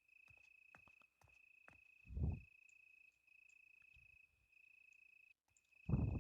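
Cricket trilling faintly on one steady high pitch, in long runs with short breaks. Two dull low thumps, one about two seconds in and one near the end.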